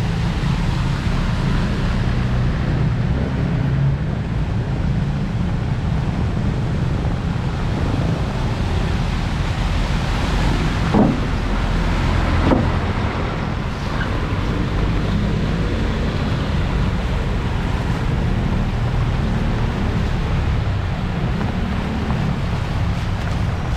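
Heavy rain with wind buffeting the microphone, a steady rush over a low rumble, with two brief louder sounds near the middle.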